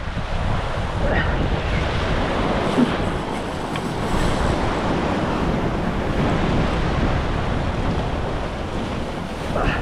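Wind buffeting the microphone over the steady wash of surf.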